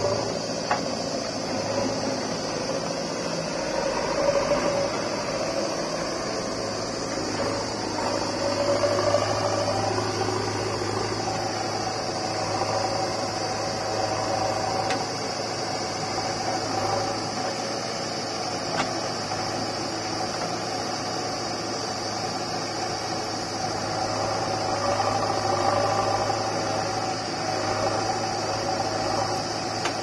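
Diesel engines of a JCB 3DX backhoe loader and a farm tractor running steadily at work: a constant engine drone with a steady high hiss above it, swelling a little at times.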